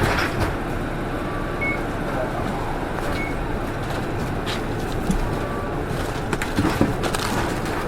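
PKG-RA274MAN city bus's diesel engine idling steadily, heard inside the cabin while the bus stands at a stop, with a few short electronic beeps and light clicks.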